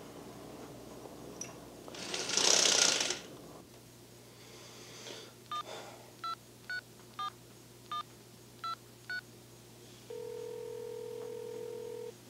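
A loud burst of rustling noise about two seconds in, then a telephone dialed by touch-tone: seven short two-tone key beeps, one for each digit, followed by a steady two-second ringback tone as the called line rings.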